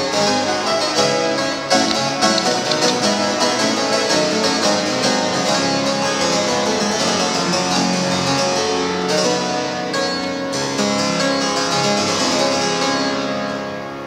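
Antique Italian harpsichord played with both hands: a busy run of many quick plucked notes, trailing off slightly near the end.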